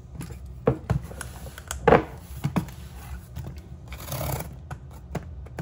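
Several knocks and thumps as items are moved about and set down on a table, the loudest about two seconds in. About four seconds in, a brief scratchy scrape as a fingernail slits the packing tape along the seam of a cardboard box.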